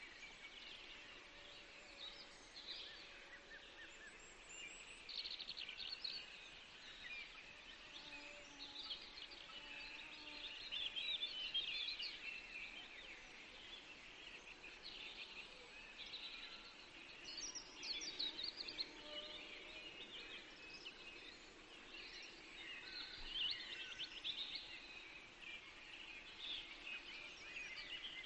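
Small birds chirping and twittering, a continuous chorus of short high calls with no pause.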